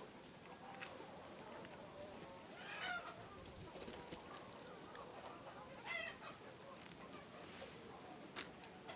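Hens clucking, with two louder calls about three and six seconds in over softer scattered clucks.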